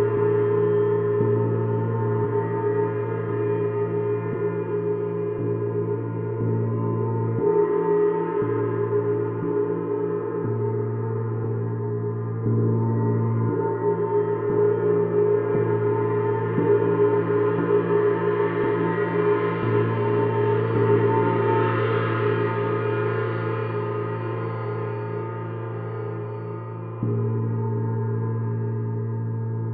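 Paiste Sidereal Moon gong ringing continuously in a dense wash of overtones that swells and fades. Its low hum shifts every second or so. Near the end the sound steps up suddenly in volume.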